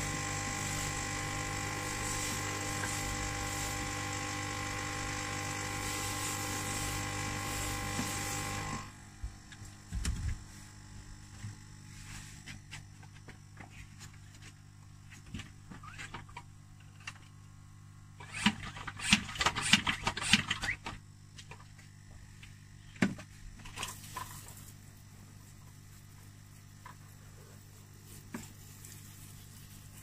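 Kärcher spray extractor running steadily as its nozzle draws water out of a car's floor carpet, then switched off about nine seconds in. After that come faint scattered clicks and a short cluster of loud clattering knocks a little past the middle.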